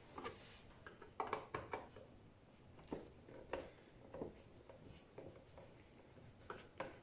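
Faint, scattered small clicks and scrapes of a Phillips screwdriver turning a screw out of a DVD player's sheet-metal case.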